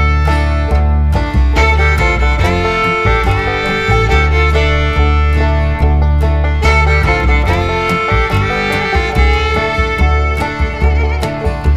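Background music: an upbeat bluegrass-style tune with fiddle and guitar over a steady bass beat.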